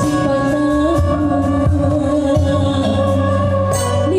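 A female kawih singer in long, held notes, accompanied by a Sundanese gamelan ensemble with bamboo flute (suling).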